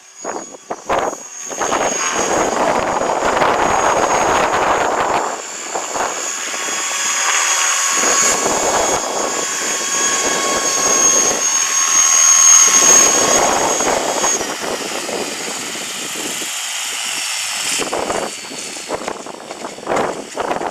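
Align T-REX 500 electric RC helicopter flying, its motor and rotor giving a steady high-pitched whine over heavy wind buffeting the microphone. The whine stops about fourteen seconds in, leaving gusting wind noise.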